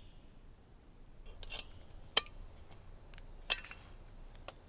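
A few sharp clinks and clicks of glass and metal as coffee-making gear is handled. The loudest comes about two seconds in, and a quick cluster follows about three and a half seconds in.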